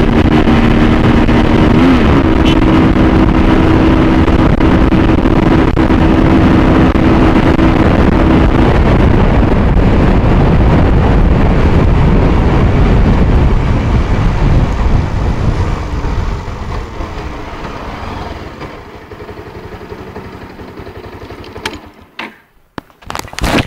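Wind rushing over the microphone and the Bajaj Pulsar 220's single-cylinder engine running hard at speed. The engine's steady note fades about eight seconds in, and from about fourteen seconds the noise dies away as the bike slows. Near the end come knocks and rustles of the camera being handled.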